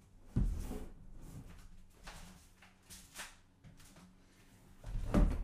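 Handling thuds: a large wooden cradled panel set down flat on a table with a thud just after the start, faint scrapes and clicks of movement, then a louder thump near the end.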